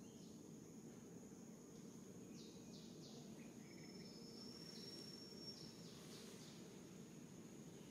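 Faint outdoor ambience: a steady high insect drone over a low hiss, with scattered short bird chirps and one held high whistle about four seconds in.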